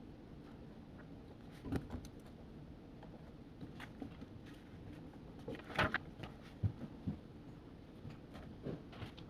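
Study café room ambience: a steady low hum with scattered small knocks and clicks of things being handled and set down, the loudest about six seconds in.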